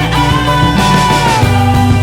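Background rock music with electric guitar, a steady bass line and drums.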